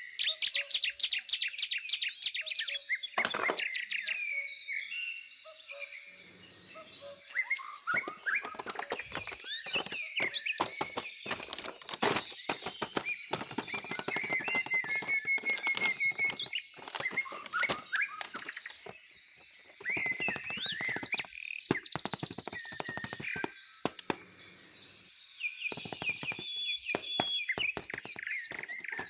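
Birds chirping and trilling, mixed with many sharp clicks and taps. The sound cuts out briefly about two-thirds of the way through.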